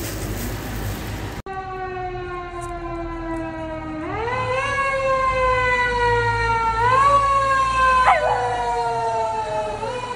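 Street traffic noise that cuts off after about a second and a half, then an emergency vehicle siren wailing, its pitch sweeping slowly up and sliding back down twice.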